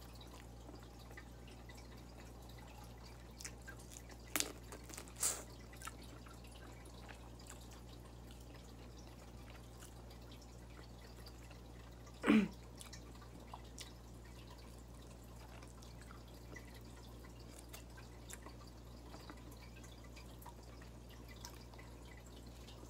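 Quiet mukbang eating sounds: a few short, wet mouth clicks and lip smacks while chewing fried tilapia, a few seconds in and a louder one about twelve seconds in, over a steady low hum.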